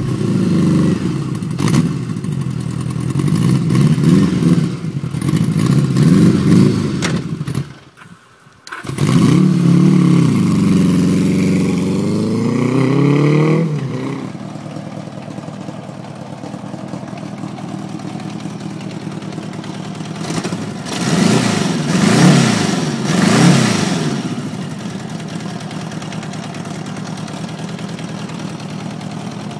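Honda GL1000 Gold Wing's flat-four engine being revved up and down in repeated blips, then settling to a steady idle. The sound drops out briefly about eight seconds in, and another round of revving comes near the twenty-second mark.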